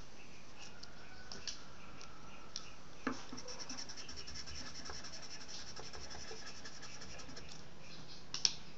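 Charcoal being rubbed onto drawing paper: a fine, rapid scratching from about three seconds in until near the end, with a few light taps and a sharper tap near the end, over a steady hiss.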